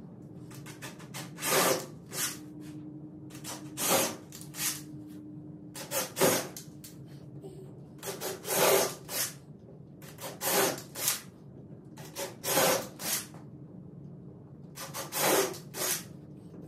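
Rough scraping strokes of hand tool work in a workshop, coming mostly in pairs about every two seconds, with a faint steady hum underneath.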